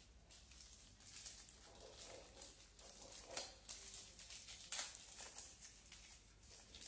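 Faint handling noise from hands working at a small plastic indoor security camera: light rustles and small clicks, the sharpest click about two-thirds of the way through.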